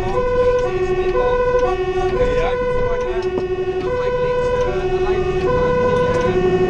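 Fire engine's two-tone siren, alternating between a lower and a higher note, each held about half a second, heard from inside the cab over the truck's engine and road rumble. It is the siren of an urgent priority-1 emergency run.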